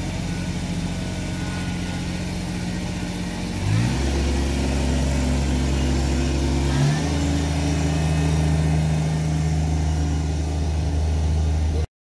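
Kubota compact tractor-loader-backhoe's diesel engine running as it is driven, revving up and getting louder about four seconds in, its pitch shifting again about seven seconds in. The sound cuts off just before the end.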